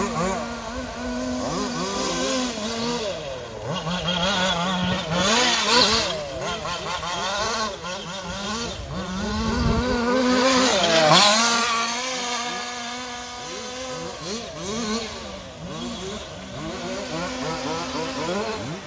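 Several radio-controlled off-road cars with small fuel engines running at once, revving up and down in quick rises and falls; one comes past loudest about eleven seconds in.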